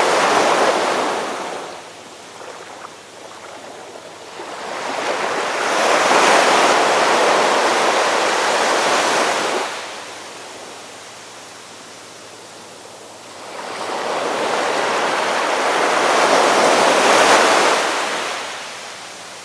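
Ocean surf: waves break and wash in slow surges, each building and fading over several seconds. One wave is dying away at the start, then two more rise and fall, with quieter wash between them.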